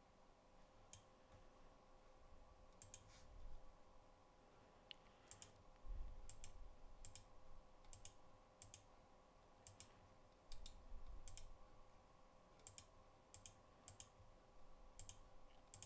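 Faint computer mouse clicks, about two dozen at irregular intervals, many as quick press-and-release pairs, made while placing graphic lines in a schematic editor. A few dull low thuds come about 3, 6 and 10 seconds in, over a faint steady hum.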